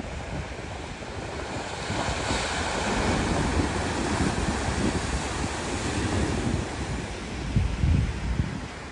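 Wind rumbling and gusting on the microphone over a steady rushing wash of surf; the gusts are strongest near the end.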